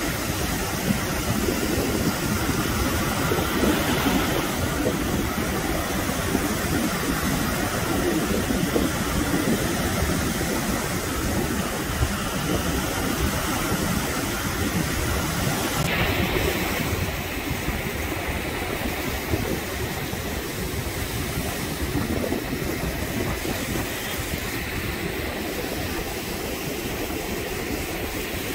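Ocean surf breaking and washing in around the wader, with wind buffeting the microphone as a steady rumbling rush. The sound changes a little past halfway and is slightly quieter after that.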